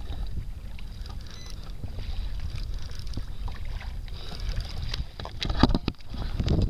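Wind on the microphone and water against a kayak, with a cluster of knocks and clatters about five and a half seconds in as the camera is handled against the fishing reel.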